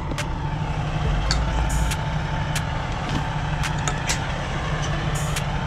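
Diesel truck engine idling steadily, with scattered sharp clicks and rustles as a flatbed tarp is handled.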